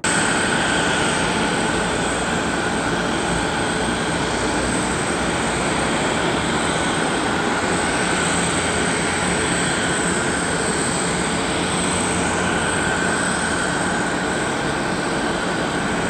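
Jet airliner engines running at an airport: a steady rush of noise with a high, steady whine over it.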